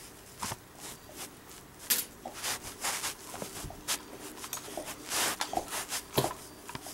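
A cat scuffling and rolling on carpet while batting a toy on a string: a run of short scratchy rustles and bumps, the loudest a knock about six seconds in.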